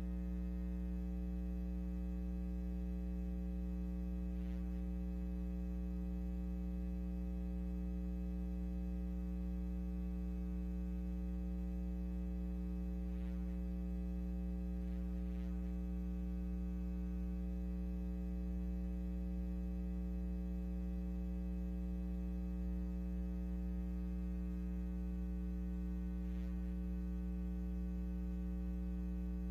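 Steady electrical mains hum on the courtroom audio feed, with no speech, while the lawyers confer at the bench. A few very faint ticks sit under it.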